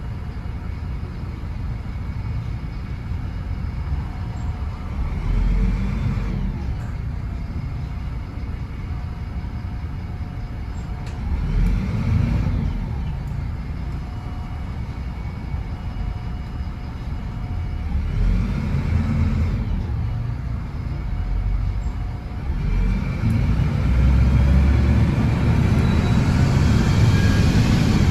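MAN 18.240 bus diesel engine heard from on board, revving up and easing off three times in pulls through the gears, then running louder and steadily under load near the end. A steady thin whine carries through the quieter stretches between.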